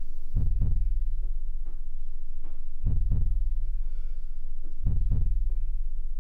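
Deep thumps, several in close pairs like a heartbeat, over a steady low drone: a suspense effect from the film's sound design.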